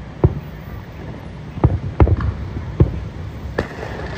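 Aerial fireworks shells bursting at a distance: about five dull booms at uneven intervals over a steady low rumble.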